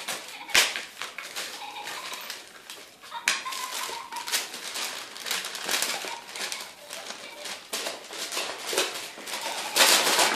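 Paper crinkling and ripping as a small dog tears into a gift bag and wrapping paper, an irregular run of crackles and tears with a few sharp rips, loudest near the end.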